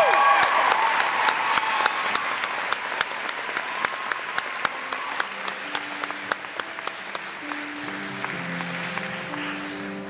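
Audience applause for the show choir, fading steadily, with single sharp claps standing out at a steady rhythm of about three a second. From about halfway, quiet held notes of instrumental music start underneath.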